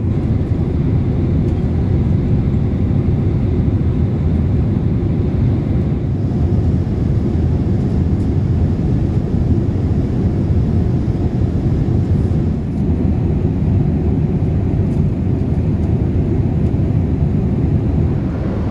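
Steady low rumble of a Boeing 787-8 cabin in cruise, the mix of airflow over the fuselage and the Rolls-Royce Trent 1000 engines heard from a window seat.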